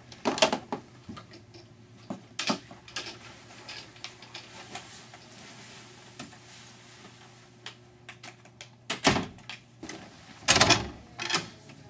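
Someone moving about a small office: a coat rustling as it is pulled on and scattered knocks, then two louder bangs near the end from a door being handled.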